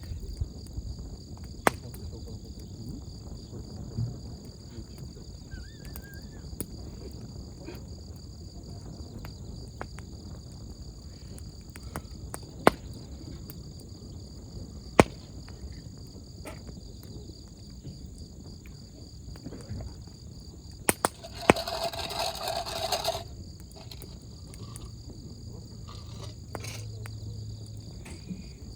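Wood campfire burning with a low steady rumble and occasional sharp crackles and pops, against the steady chirring of crickets. About two thirds of the way through, a louder noisy rush lasts a second or two.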